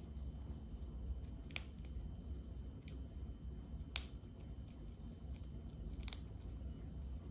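Sugar glider cracking and chewing seeds from its dish: small nibbling clicks with three sharp crunches, about two seconds apart, over a faint low hum.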